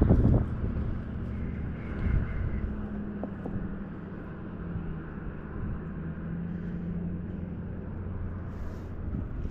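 Faint distant engine hum over a steady low outdoor rumble, the hum drifting a little lower in pitch partway through. A brief thump right at the start.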